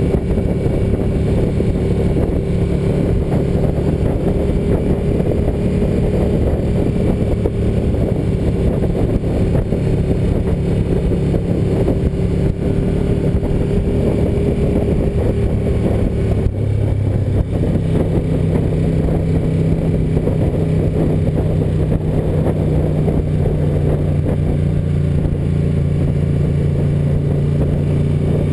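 Ducati 900FE's air-cooled 90-degree L-twin engine running steadily under way, heard from the rider's seat. About sixteen seconds in, its pitch drops suddenly to a lower, steady note.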